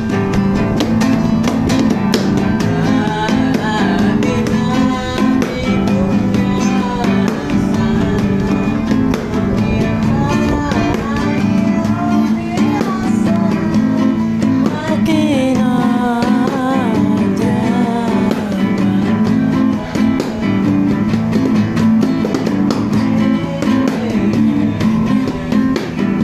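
Acoustic guitar strummed steadily, with a voice singing a wavering melody over it.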